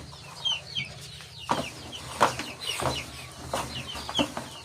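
Chickens clucking and calling in short repeated notes, with a few sharp knocks among them.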